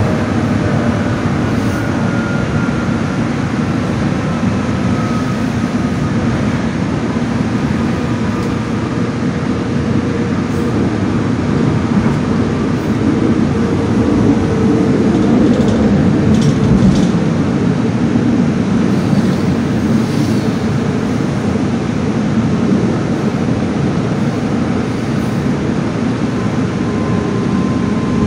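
Steady running noise inside a moving passenger train car: a continuous deep rumble of wheels and running gear, with a faint motor whine in the first several seconds.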